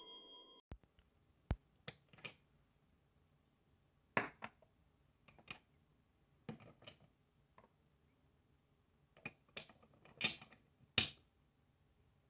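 Small number blocks of a Christmas countdown figurine being handled and set in place: scattered light clicks and knocks, some in quick pairs, as the blocks are turned and set down.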